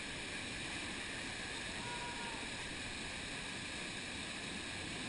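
Steady rush of a canyon river's white water churning over rocks.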